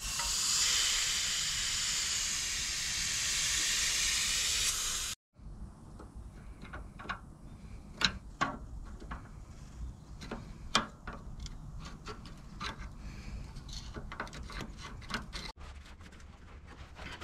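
A loud steady hiss for about five seconds that cuts off abruptly. Then light, scattered clicks and scrapes of small hand tools working at the leaking seam of the tractor radiator.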